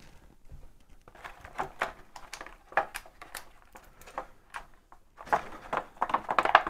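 Clear plastic blister-pack tray crinkling and clicking as small action-figure parts are pried out of it: an irregular run of crackles and clicks, briefly pausing and then growing busier near the end.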